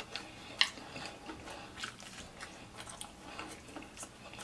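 A person chewing fried chicken, with irregular mouth smacks and clicks.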